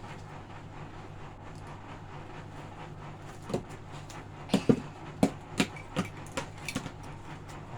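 A series of sharp clicks and knocks from hard parts being handled. They start about halfway through and bunch together over a few seconds, the loudest coming near the middle. A steady low hum runs underneath.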